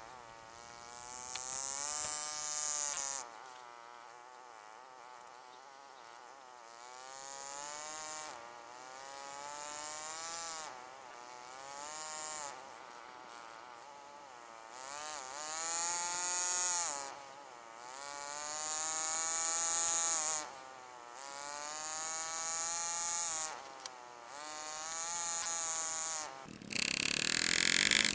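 Power-assisted engraving handpiece driving a graver as it cuts fine shading lines into a sterling silver ring. It buzzes in about eight separate bursts of one to four seconds, its pitch rising and falling within each burst over a high hiss. Near the end a rougher, unpitched sound takes over.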